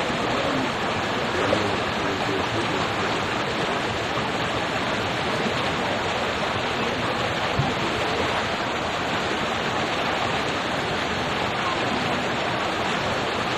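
Steady rush of flowing river water, with elephants wading and splashing in it.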